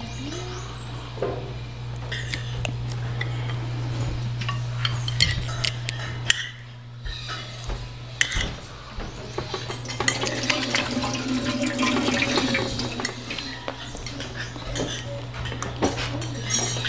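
Forks and spoons clinking and scraping on plates and dishes as people eat, a scatter of short sharp clicks over a steady low hum.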